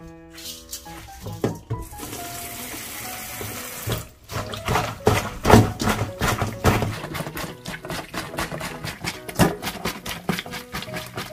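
Fresh wakame seaweed being kneaded and rubbed hard by hand with coarse salt in a stainless steel colander: irregular wet squelches and slaps, many in quick succession from about four seconds in. Before that there is a steady hiss lasting about two seconds.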